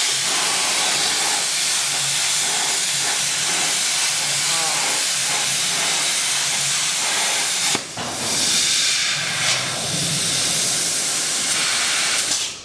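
CNC plasma cutter's torch cutting steel plate: a steady, loud hiss of the plasma arc and gas jet. It cuts out briefly about eight seconds in and again at the very end, as the arc stops between cuts.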